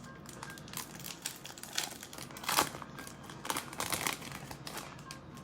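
Plastic trading-card pack wrapper crinkling and tearing as a pack is opened, in irregular crackles, the loudest about two and a half seconds in.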